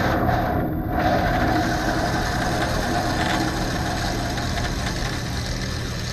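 Bandsaw with a fine-tooth metal-cutting blade running steadily while a thin aluminum sheet is fed into the blade. The motor hum is steady, with rougher blade noise in the first second and again briefly around three seconds in.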